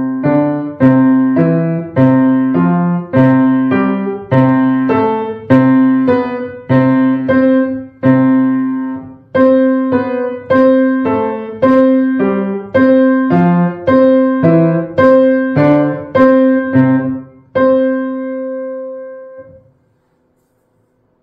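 Upright piano played with both hands in a steady, even pulse of note figures, a wrist-rotation exercise whose intervals widen from a second to a fifth. It closes on a held chord that rings out and fades near the end.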